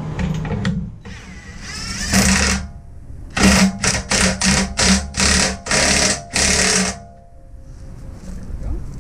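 Cordless DeWalt impact driver with a socket running down a bolt on a steel tow-dolly frame: one run that rises in pitch, then about seven short trigger bursts of rapid hammering as the bolt is tightened.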